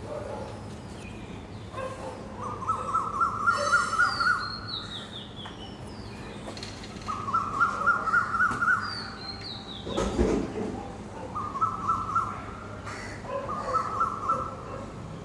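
Asian koel calling: four bursts of fast repeated notes, each burst about a second or two long and rising a little in pitch. A thinner, higher series of notes falls in pitch twice between them, and a dull thump comes about two-thirds of the way through.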